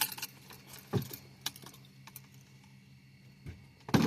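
Scattered sharp clicks and knocks of fishing gear being handled in a boat, the loudest at the start, about a second in and again near the end.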